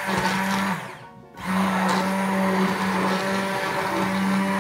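Hand-held immersion blender running in a saucepan of hot chocolate with a steady motor whine, frothing it to make foam on top. It cuts out briefly about a second in, then starts again and runs on.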